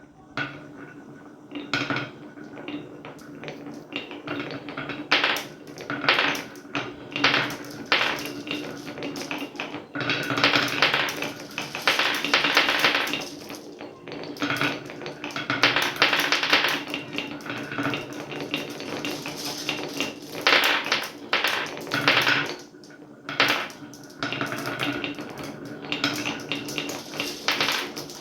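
Marbles rolling and clattering down a wooden marble run: a steady run of sharp clicks and rattles, with busier, louder stretches of rolling.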